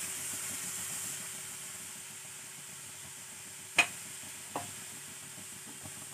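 Tamarind liquid sizzling in a hot nonstick kadai just after it is poured in, the hiss slowly dying down. Two short sharp clicks come about four seconds in.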